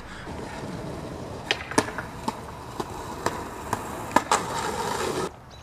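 Skateboard rolling on a concrete sidewalk, ridden in a switch manual: a steady rolling noise from the wheels, with a series of sharp clicks and knocks. The rolling stops suddenly near the end.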